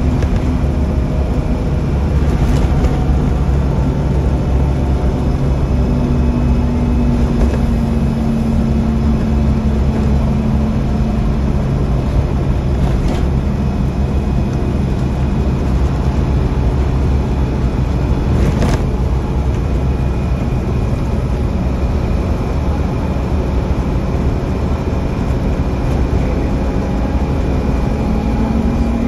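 Scania OmniCity double-decker bus on the move, heard from inside the lower deck: its engine and drivetrain give a steady low drone over road noise. A few brief rattles cut through, about 2.5, 13 and 18 seconds in.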